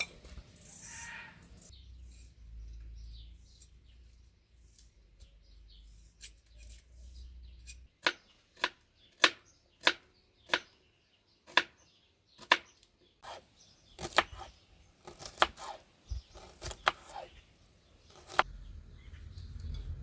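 Knife cutting food on a wooden board: sharp, irregular knocks, one or two a second, starting about eight seconds in after a quiet stretch with a low hum.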